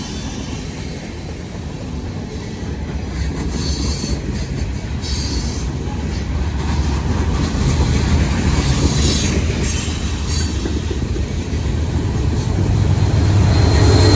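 Freight train rolling past: a continuous low rumble that grows louder toward the end, with high-pitched wheel squeal coming and going.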